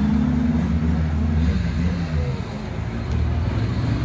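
Stunt show car engine running. Its pitch drops about halfway through as the car eases off.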